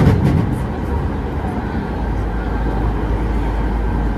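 Nagano Electric Railway 3500 series electric train running, heard from inside the car: a steady rumble of wheels on rail as it crosses a steel truss bridge, with a faint steady high whine and a few quick clicks at the start.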